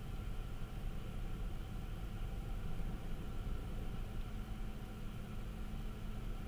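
Steady cabin noise of a Pontiac Vibe cruising at highway speed: a low road and engine drone with a fainter hiss above it.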